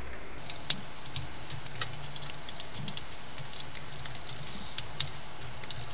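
Small plastic clicks and taps as a laptop's snap-fit plastic palm-rest cover is worked loose by hand, with a sharper click about a second in and another near the end.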